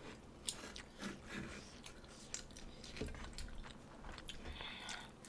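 Soft chewing and mouth sounds of someone eating close to the microphone, with a few faint short clicks.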